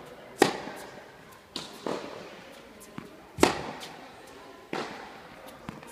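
Tennis balls struck by rackets in a baseline rally, with the ball's bounces in between: a sharp pop every second or so, each followed by a short echo in the indoor hall.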